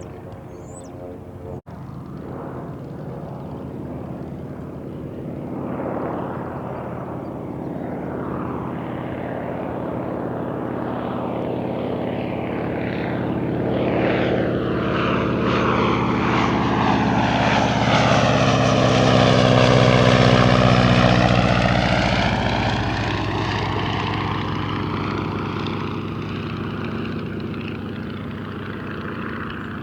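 Boeing Stearman PT-27 Kaydet's seven-cylinder Continental radial engine and propeller passing by. It grows steadily louder to a peak about two-thirds of the way through, then fades as the plane moves away.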